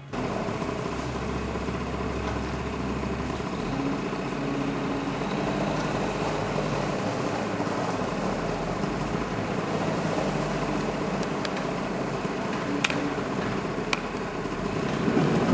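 Steady machine noise with a low hum, strongest in the first few seconds; two short faint clicks near the end.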